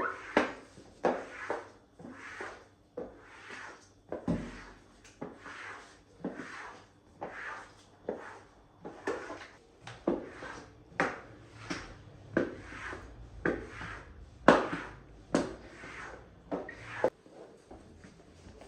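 Rhythmic back-and-forth scrubbing strokes on a surface, about two a second, each a short rasping rub.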